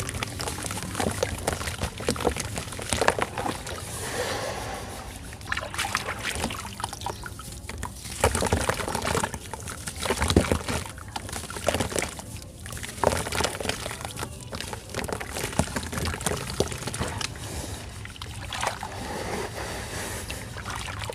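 Chunks of red sand crumbling and the loose grains pouring and trickling down, an irregular gritty crackle with several louder bursts.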